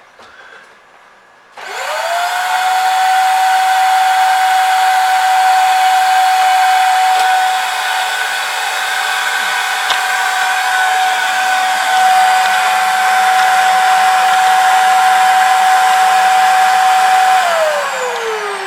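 Hoover vacuum cleaner switched on: its motor spins up quickly to a steady, loud whine and runs for about fifteen seconds, then is switched off and winds down with a falling pitch. It is running normally after a repair to its torn power cord.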